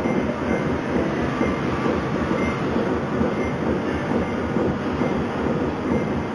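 Steady, loud mechanical rumble of machinery running without a break, with a faint high tone coming and going.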